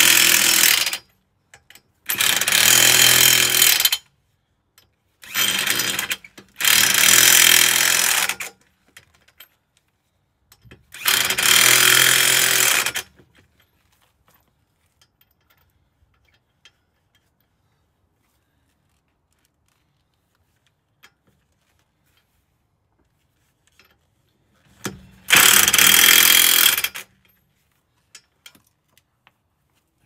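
Corded electric impact wrench hammering on a car's wheel lug nuts in six bursts of one to two seconds each: five in the first 13 seconds, then a long gap, then one more about 25 seconds in.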